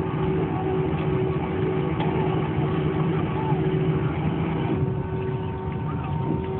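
Steady cabin drone of a jet airliner taxiing after landing, its engines running at low power with a constant hum and a steady tone; it eases slightly about five seconds in.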